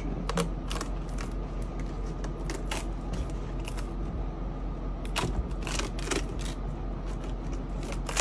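Metal tweezers picking and scratching at a grip-tape foot pad, peeling out thin plastic backing strips: irregular small clicks and scrapes over a steady background hum.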